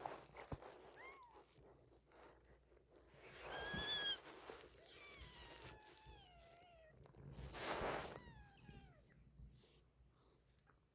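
Young kittens, about two weeks old, mewing: a series of thin, high mews, several falling in pitch. There are two short, louder bursts of noise about four and eight seconds in.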